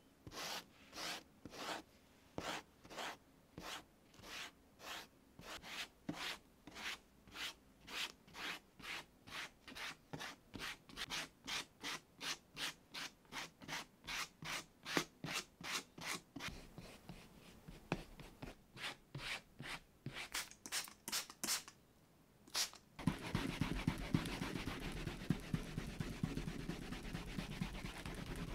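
Rubbing strokes across the flesh side of leather coated with Tokonole burnishing agent, as a white plastic slicker smooths it back and forth at about two strokes a second, the strokes coming quicker later on. Near the end this gives way to continuous, louder fast scrubbing with a cloth pad, polishing the flesh side smooth.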